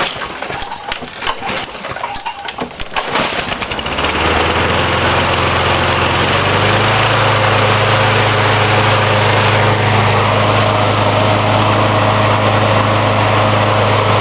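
Older Toro GTS walk-behind lawn mower being started on choke: a few seconds of clatter, then the engine catches about four seconds in and runs steadily. Its pitch steps up slightly a couple of seconds later.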